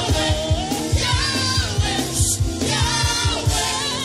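Worship music: voices singing a melody over a band with a steady beat.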